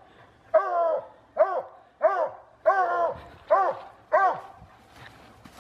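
Black and tan coonhound barking six times in a steady run, about one bark every three-quarters of a second, at a raccoon it is after; the barks stop near the end.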